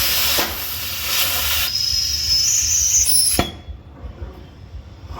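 Cutting torch hissing steadily while cutting off a rusted bolt head. About two seconds in a high whistle joins and rises in pitch, then the hiss stops with a sharp click about three and a half seconds in.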